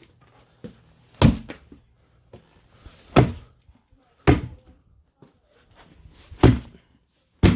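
Five heavy thumps, unevenly spaced, as a tire mounted on its rim is pushed and slammed down onto another tire to force the bead into place; the last one comes just as the bead seats.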